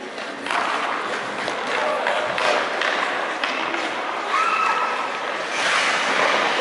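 Ice rink ambience: skate blades scraping the ice and a few sharp stick-on-puck clicks over murmuring spectator voices, with a brief held call near the middle.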